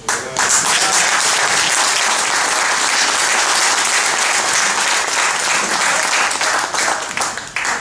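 A small audience clapping their hands in applause, dying away near the end.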